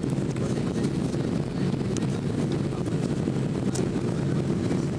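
Steady low rumble of engine and airflow noise heard inside the passenger cabin of a Boeing 767-300ER airliner descending on final approach.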